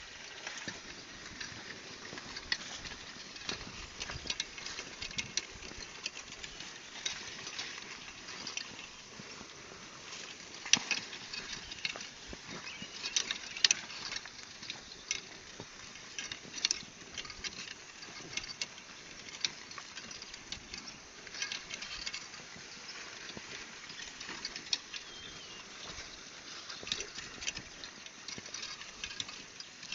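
Ox-drawn plow working the soil: scattered, irregular crackling clicks and scrapes over a low steady background, with a few louder cracks about a third of the way through.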